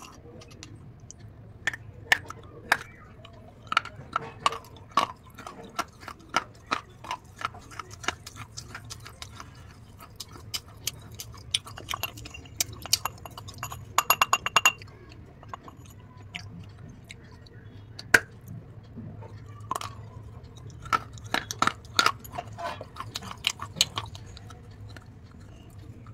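Close-miked biting and chewing of a hard, crunchy food: a string of sharp crunches and clicks, with a dense burst of crunching about halfway through and quieter chewing between.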